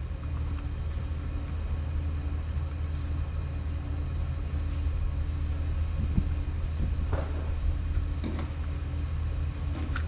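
Steady low machinery hum with a faint constant tone above it; faint voices come in briefly about seven and eight seconds in.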